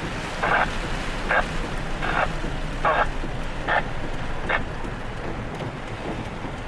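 Rain and wind noise around a vehicle near a tornado. A short burst repeats about every 0.8 seconds and stops about four and a half seconds in.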